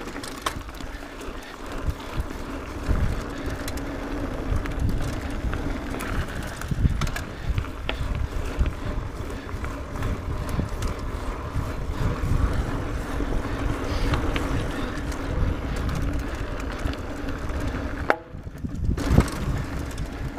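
Mountain bike riding fast down a dirt trail: the tyres rumble over the ground and the bike rattles and knocks over bumps, with wind buffeting the microphone. The noise drops briefly near the end.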